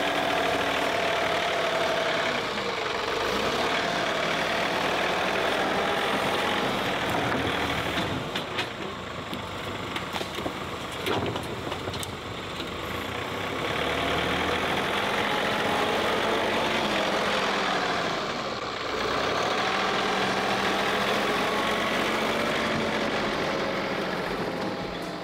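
John Deere compact tractor's diesel engine working under load, its pitch rising and falling as the front loader pushes into and lifts a pile of logs. A few sharp knocks come around the middle.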